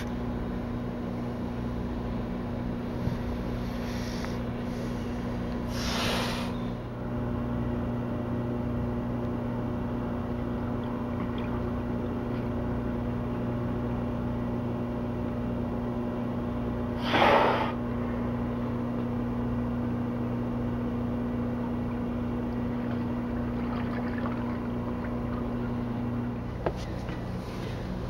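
Sea lion breathing out hard through its nostrils at the surface: two short, noisy snorts about eleven seconds apart, with fainter breaths between. Under them runs a steady low mechanical hum that cuts off near the end.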